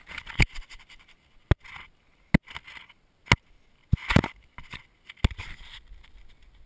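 Irregular sharp knocks and scrapes against tree bark from climbing a trunk, with the body-worn action camera bumping and rubbing on the bark; about seven distinct knocks with rustling between them.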